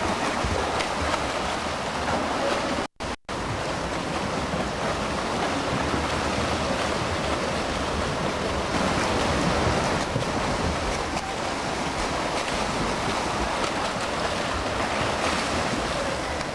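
Steady wash of splashing water from swimmers stroking through a pool. The sound drops out twice, very briefly, about three seconds in.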